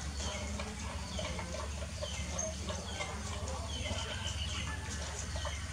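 Dogs eating from metal pans, with scattered small clicks of chewing and of muzzles against the pans, over repeated short, falling chirps from birds.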